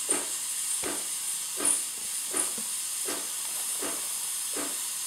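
Steam wand of a single-block (thermoblock) home espresso machine blowing steam with a steady hiss, pulsing about every three-quarters of a second. The steam circuit is being run to bring it up to temperature before frothing milk, and the steam is now coming out generous and strong.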